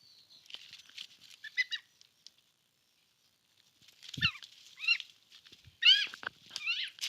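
A chicken squawking: a few faint chirps, then about four short, louder calls in the last three seconds.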